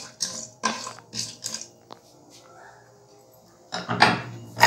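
Wooden spatula stirring whole spices in hot oil in a non-stick pot, scraping strokes about twice a second, then a pause. A louder clatter comes near the end.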